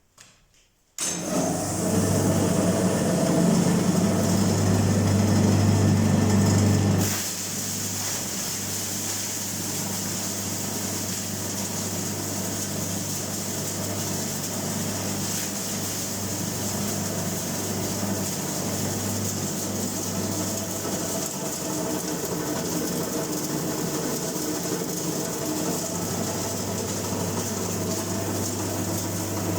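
Hookah tobacco cutting machine switched on about a second in and running with a steady low hum and a high whir. It gets quieter at about seven seconds and then runs on evenly.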